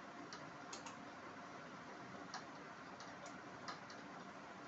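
Clothes hangers clicking against a hanging rail as garments are hung up and taken down: a few light, irregularly spaced clicks over faint room tone.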